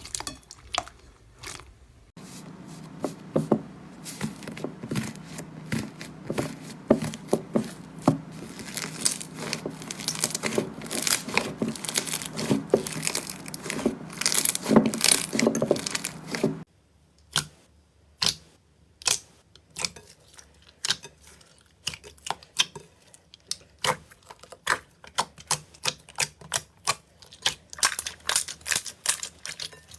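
Close-miked slime or a similar crunchy satisfying-video material being pressed and handled: dense crackles, pops and clicks. The texture changes abruptly about two seconds in and again a little past halfway, as one clip gives way to the next.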